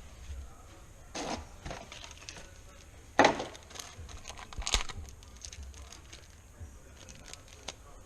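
Brass wire brush scrubbing gunk off a brake line fitting surface in a few short, rasping strokes, the loudest about three seconds in, followed by a few small clicks.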